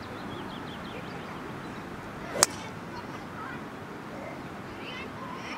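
Golf club striking a teed ball on a full swing: a brief swish of the downswing, then one sharp, loud crack of the clubface on the ball about two and a half seconds in. It is a clean, solid strike.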